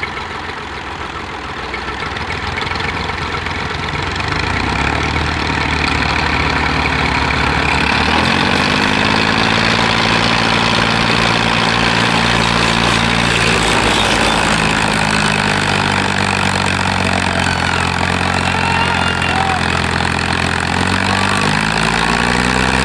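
Massey Ferguson 240 tractor's three-cylinder diesel engine labouring to pull a heavily loaded sugarcane trolley: it runs steadily, revs up about a third of the way in and holds there, then dips and picks up again near the end.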